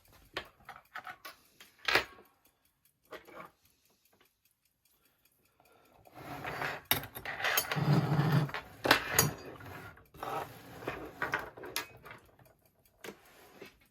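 Small metal parts of a longcase clock clinking, tapping and knocking as they are handled and fitted back together. Scattered clicks at first, a short quiet spell, then a busier bout of clatter with a couple of sharp knocks about two-thirds of the way in.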